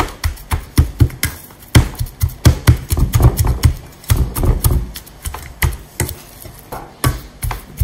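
Wooden masher pounding fried potato slices in a stainless steel bowl: a quick run of sharp knocks and soft thuds, about three a second, as the potatoes are mashed.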